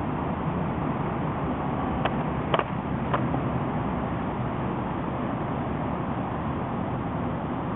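Sparring weapons striking each other in three quick sharp knocks about two to three seconds in, the middle one loudest, over steady background noise.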